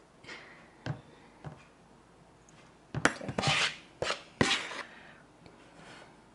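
Metal measuring cup scooping flour from a plastic bowl and tipping it into a bread machine's pan: light scraping rustles and a few sharp taps, busiest between about three and five seconds in.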